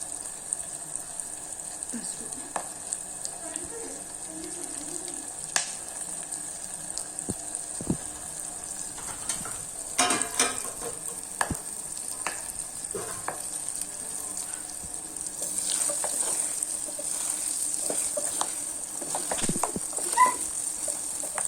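Oil sizzling steadily in a pan as a South Indian tempering of mustard seeds, cumin, chillies, peanuts and curry leaves fries, stirred with scattered clicks and scrapes of a spoon against the pan. The sizzle grows louder about two-thirds of the way through.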